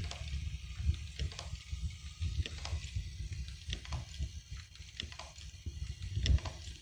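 Automatic invisible-zipper slider mounting machine running, with a steady low rumble and sharp mechanical clicks and rattles at an irregular rate of about two a second.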